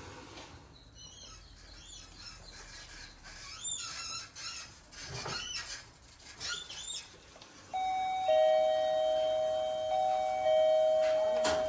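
Small birds chirping a few times, then from about eight seconds in a loud electronic chime of two steady, overlapping tones that rings on, with a sharp click near the end.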